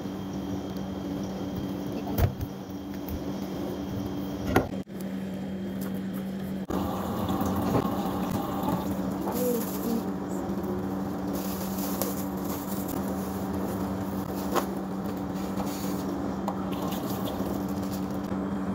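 Water running into a stainless steel kitchen sink with splashing and handling, over a steady low hum. There are a few knocks in the first five seconds, and the water is louder from about seven seconds in.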